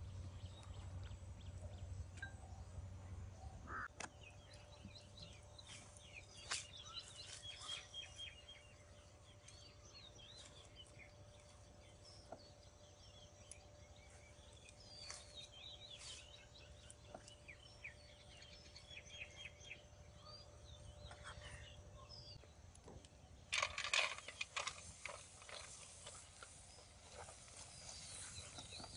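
Birds chirping and calling in the background. About 24 seconds in, there is a brief, loud rattle of dry pumpkin seeds being poured into a shallow pan.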